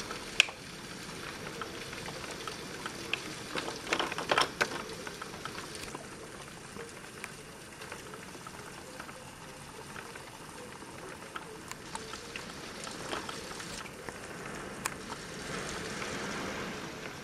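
Hurricane wind and heavy rain, a steady hiss heard through closed hurricane windows, with a few sharp taps, the loudest just after the start and a cluster about four seconds in.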